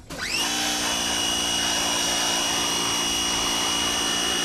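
Pressure washer motor running with a steady whine. At the very start it spins down almost to a stop and winds straight back up.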